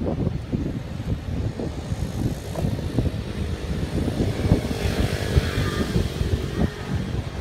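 Wind buffeting the microphone in uneven gusts, a low rumble that never lets up, with a brighter hiss swelling up in the middle and fading again.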